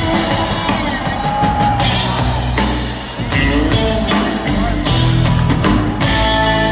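Live trio of electric guitar, drum kit and upright bass playing an instrumental passage with steady drum strikes, recorded from within the audience.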